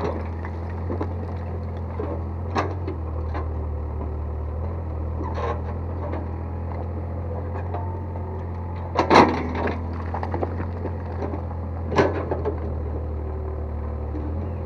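Excavator's diesel engine running steadily, with a few sharp knocks and clatters as the bucket digs and dumps soil and rubble into the hole, the loudest about nine seconds in.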